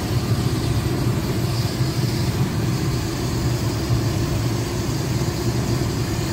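Steady car cabin noise while driving: engine and tyre noise on a wet road, heard from inside the car.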